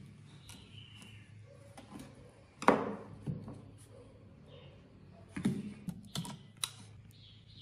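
Irregular clicks and knocks from tools and parts being handled on a workbench, with one sharp knock nearly three seconds in and a quick run of clicks a little after five seconds, over a low steady hum.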